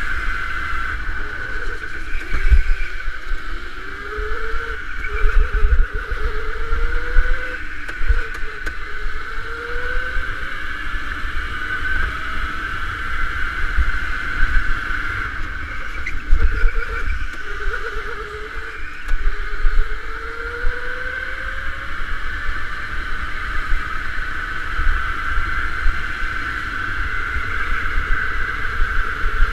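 Electric go-kart's motor whining, its pitch climbing again and again as the kart accelerates out of corners, over a steady higher whine and a low rumble.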